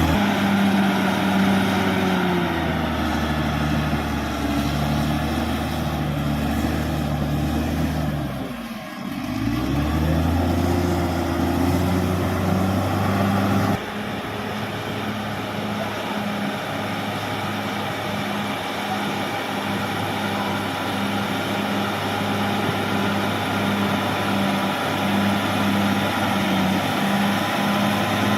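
Caterpillar D6R XL bulldozer's diesel engine running hard. Its pitch sags and climbs back about nine seconds in, as under a heavy load. The sound changes abruptly about fourteen seconds in, then runs on steadily.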